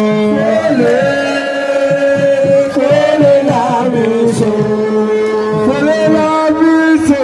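Music: a voice singing long, held, wavering notes over drum beats.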